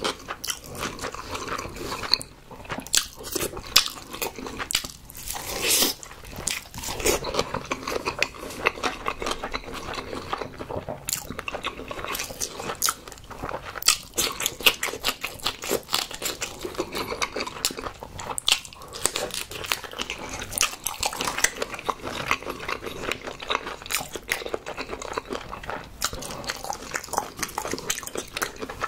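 Mukbang eating sounds: one person biting and chewing soy-sauce-marinated raw shrimp and fried egg, a dense run of quick wet clicks and crunches.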